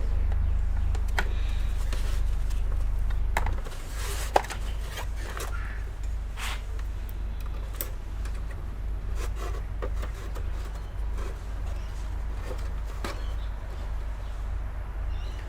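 Scattered clicks and taps of a small desktop computer's parts being handled during disassembly, with one sharper click about four seconds in. A steady low hum underneath drops off just before that click.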